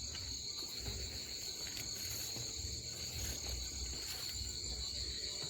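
Night chorus of insects in the Amazon rainforest: a steady, high-pitched trilling in two bands, with a low rumble underneath.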